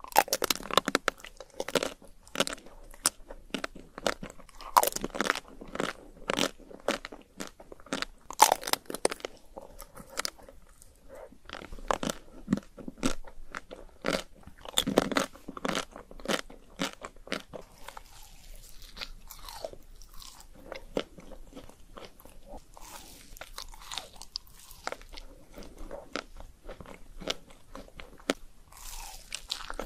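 Close-miked biting and chewing of chocolate-shelled ice cream: the hard chocolate coating cracks and crunches in many sharp snaps. Over the last third the chewing becomes sparser and quieter.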